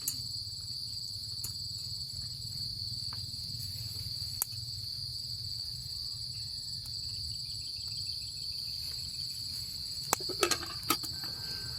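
Steady chorus of insects, crickets, keeping up one continuous high-pitched trill, with a few sharp clicks and knocks near the end.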